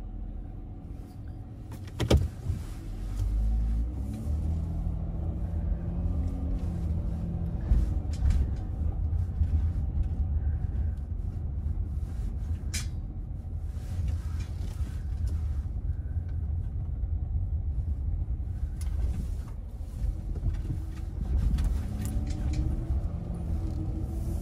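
A van's engine running with road rumble, its pitch rising and falling as the engine speed changes. A sharp knock comes about two seconds in.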